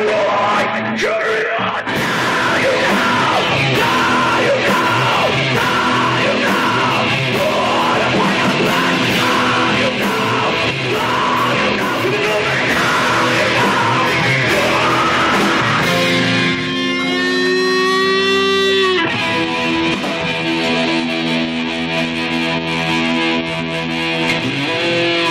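Live rock band playing loud, heavy music with yelled vocals and electric guitar. About two-thirds through, a long held note rises slightly and stops sharply, and a sustained ringing chord follows.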